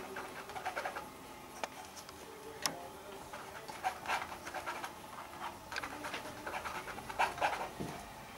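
Paintbrush dabbing and scraping oil paint onto a stretched canvas: a series of short, uneven scratchy strokes.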